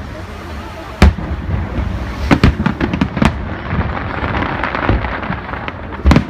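Aerial firework shells bursting overhead: a loud bang about a second in, then more bangs at irregular intervals. Crackling and a low rumble sound between the bangs.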